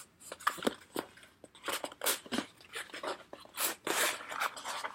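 Cardboard shipping box being handled and opened by hand: irregular crinkling, scraping and tapping of cardboard and packing material.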